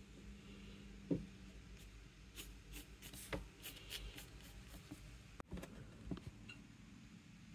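Colored pencil scratching across paper in short sketching strokes, with one light knock about a second in that is the loudest sound.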